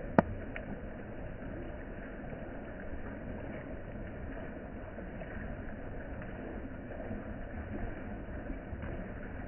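Steady rain falling on the surface of a pond, an even patter with no pauses. A single sharp click about a quarter second in.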